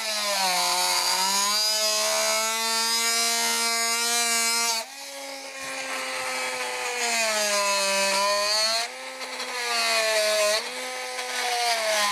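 Milwaukee M12 cordless oscillating multi-tool running with its blade cutting into wood. Its buzz sags in pitch as the blade bites and comes back up, and it drops in loudness about five seconds in and again near nine seconds.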